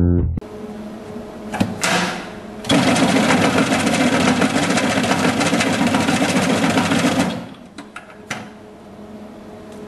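Electric pomegranate deseeder running with a steady motor hum. Near the middle, a loud dense rattling lasts about four and a half seconds while a pomegranate half is pressed into the machine, then the sound drops back to the hum, with a few short knocks.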